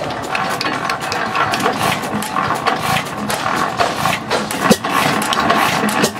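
Economy 5 HP antique gas engine starting up, its heavy flywheels spinning with irregular clicks and knocks from the running engine. One sharper knock comes near the end.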